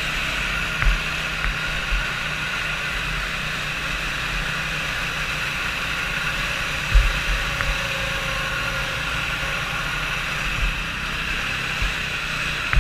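Small 120cc four-stroke Arctic Cat youth snowmobile engine running steadily at low speed, heard from on board the sled, with a few short low knocks on the microphone, about a second in and again about seven seconds in.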